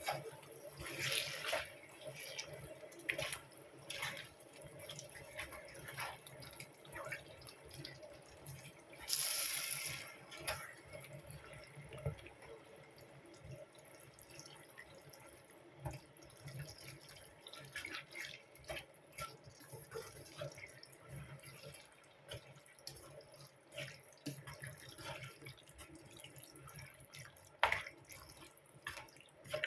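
Kitchen sink work: water from a tap and dripping, with scattered clinks and knocks of dishes or utensils, and one brief burst of hissing spray about nine seconds in.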